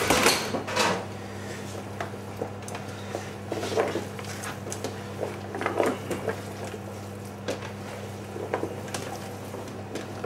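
Stainless steel hotel pans clattering on a steel counter as one is moved and set down, loudest in the first second. Then hands work raw chicken legs and vegetables in the pans, with scattered soft scuffles and light metal knocks over a steady low hum.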